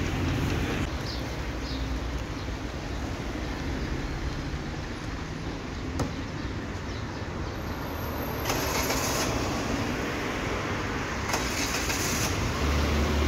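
Steady road and engine rumble of a moving vehicle, with two brief surges of hiss about eight and a half and eleven and a half seconds in.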